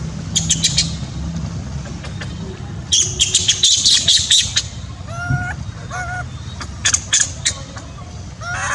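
Harsh squawking animal calls, densest about three to four and a half seconds in, followed by a few short pitched calls and more sharp squawks, over a steady low hum.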